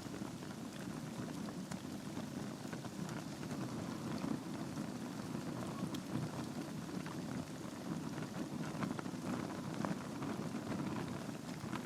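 Wood fire burning in a fireplace: a steady low rush of flames with frequent small crackles and pops from the burning logs.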